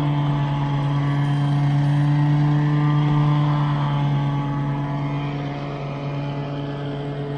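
Exmark self-propelled walk-behind lawn mower's engine running at a steady, constant pitch while cutting grass. It grows gradually fainter in the second half as the mower is pushed away up the slope.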